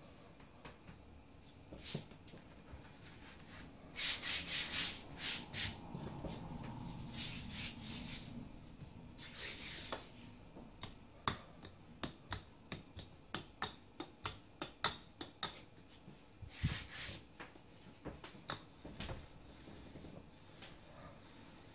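Hands and a wooden rolling pin working folded, laminated croissant dough on a floured bench. There is rubbing and brushing about four seconds in, then a run of sharp clicks, about two a second, as the pin is pressed and rolled over the dough.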